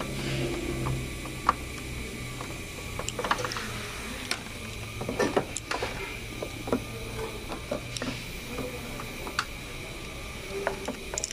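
Scattered clicks and light knocks as the AC recovery machine's hose connections are handled and unhooked, thickest around three and five to six seconds in, over a steady low hum that fades past the middle.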